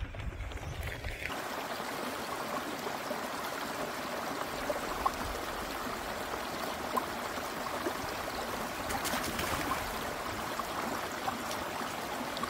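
Rain falling in a steady hiss, with scattered small ticks of drops landing close to the microphone; it sets in about a second in as the low wind rumble falls away.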